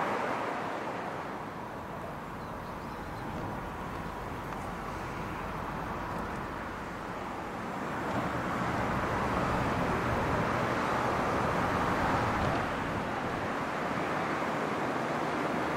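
Steady outdoor rushing noise with no distinct events, swelling louder about halfway through.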